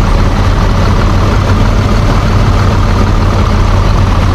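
A heavy bus engine idling steadily and loudly, laid in as a sound effect over the toy bus.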